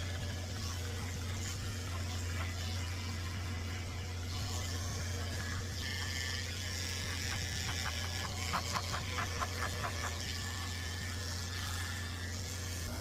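Electric dog-grooming clippers running with a steady low hum. A quick run of short clicks comes about two-thirds of the way in.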